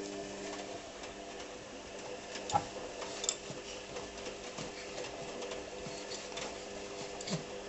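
Washing machine running, its drum turning: a steady motor hum with scattered light clicks and a couple of sharper knocks.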